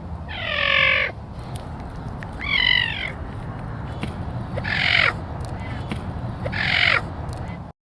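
An animal giving four harsh, crow-like calls about two seconds apart, each call falling in pitch, over a steady low hum; the sound cuts off suddenly near the end.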